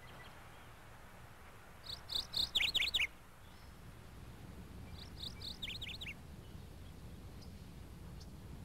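A small songbird singing two short phrases of quick, high chirps, one about two seconds in and another about five seconds in, over a faint low hum.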